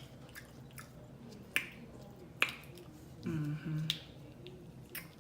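Wet, sharp smacking clicks from eating and handling crab: two loud ones about one and a half and two and a half seconds in, with a few softer ones around them. A short hummed "mm" a little past the middle.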